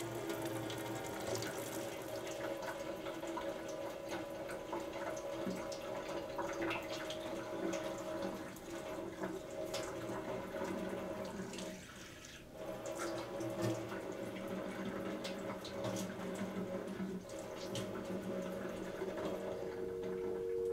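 Kitchen tap running into a stainless steel sink, water splashing as hands wash under the stream. The water sound dips briefly about halfway through.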